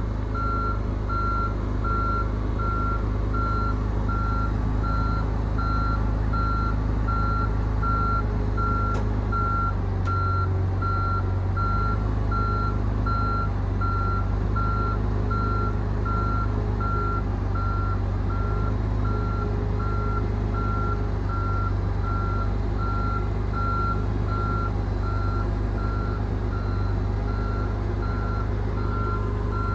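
Vehicle backup alarm beeping at an even pace, over the steady low rumble of an engine running.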